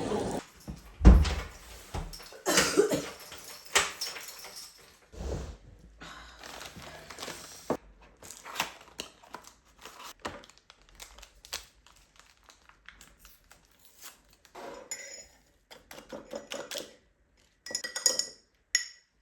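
A string of separate knocks, thunks and light clatters of household items, such as dishes and utensils, being handled and set down on hard surfaces. The loudest is a low thud about a second in, and there is a brief ringing clink near the end.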